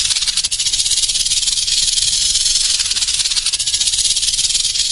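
Snake sound effect: a loud, steady, rattling hiss with a fast fine flutter.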